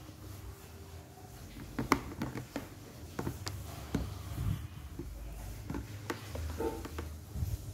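Handling noises: a string of light clicks and knocks with some rubbing as the plastic power plug and cord of a small water dispenser are handled, the sharpest click about two seconds in.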